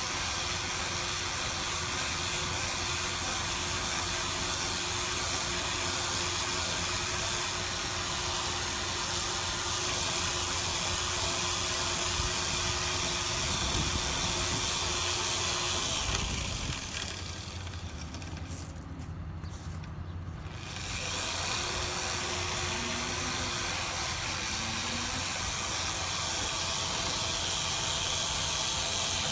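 6-inch random orbital sander running steadily, sanding paint with a 120-grit disc. It cuts out about 17 seconds in and starts again about four seconds later.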